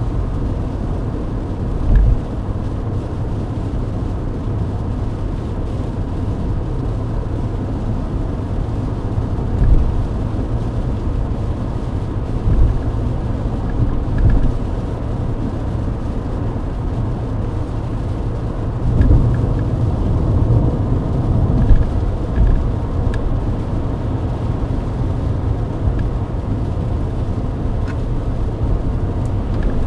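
Steady low rumble of a Mercedes-Benz W124 heard from inside the cabin at highway speed, with tyre noise on a wet road. Several short, dull low thumps stand out, at about 2, 10, 13, 19 and 22 seconds in.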